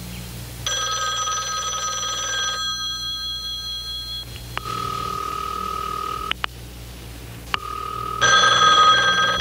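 Telephone ringing in a cartoon soundtrack: a long ring, a pause with two shorter, lower steady tones, then another loud ring near the end.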